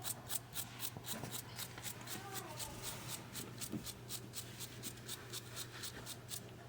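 Hand wire brush scrubbing a washer door-lock terminal to shine up the contact, in quick even strokes about five a second that stop near the end.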